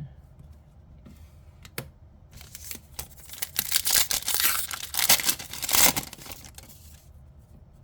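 Foil trading-card booster pack being torn open, its wrapper crinkling and tearing for about four seconds, loudest in the middle.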